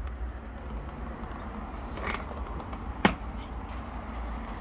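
Handling noise from hands working at the plastic intake filter housing in the trim compartment. A low steady rumble, with a light knock about two seconds in and a sharp click about three seconds in.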